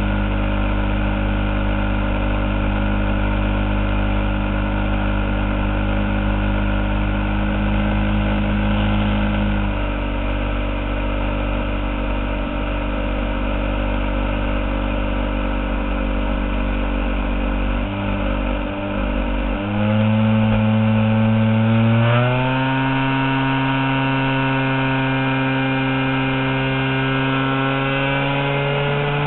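Engine of a giant-scale RC airplane running under throttle, with a steady pitch that drops back about a third of the way in, then climbs sharply in two steps around two-thirds of the way through and keeps creeping higher to the end.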